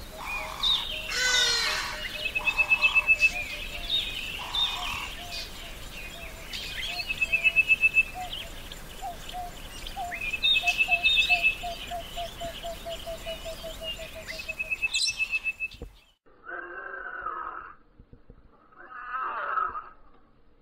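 Wild birds calling: scattered chirps, a fast high trill repeated several times, and a run of low notes that speeds up. About 16 seconds in the sound cuts to a quieter track carrying three drawn-out, wavering calls.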